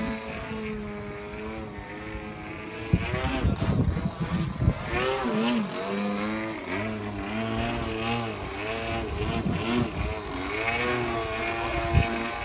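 Two-stroke gasoline engine of a radio-controlled 3D aerobatic airplane running, its pitch steady for the first few seconds, then repeatedly dipping and rising as the plane manoeuvres. A few low thumps sit under it about three to five seconds in.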